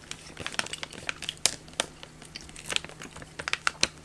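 Plastic bag of gummy bears crinkling as it is handled, a run of irregular crackles and rustles.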